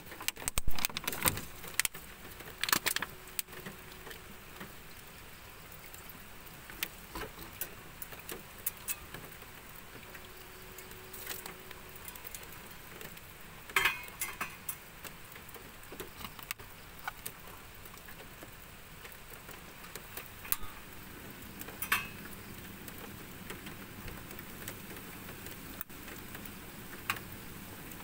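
Scattered clinks and knocks of small metal cookware being handled on a portable butane camping stove: a quick run of clatter in the first few seconds, then single clicks every few seconds, over a steady soft hiss.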